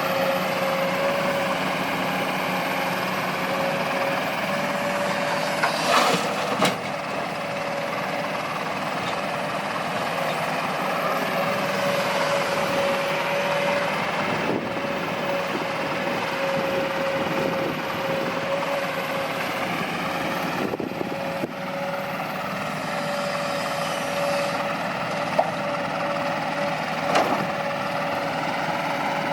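Kobelco SK200-8 hydraulic excavator running under working load, its diesel steady with a constant hydraulic whine and engine tones that slowly rise and fall. Sharp metal knocks come a few seconds in and again near the end.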